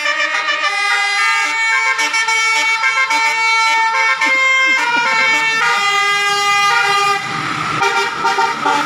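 Indonesian bus 'telolet' horn, a set of musical air horns, sounding a tune of held notes that change every second or so. Near the end the notes give way to a rushing noise.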